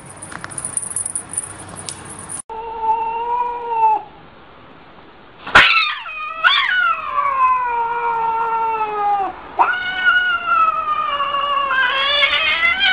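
A cat yowling: a short call, then after a sharp click a run of long drawn-out wavering calls that slide down in pitch, one after another. It is the threat yowl of a cat standing with its back arched.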